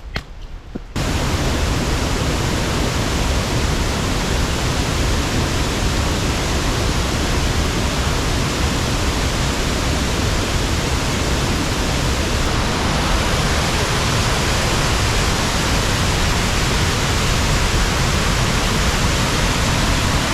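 Large waterfall close by: a loud, steady rush of falling water that cuts in suddenly about a second in.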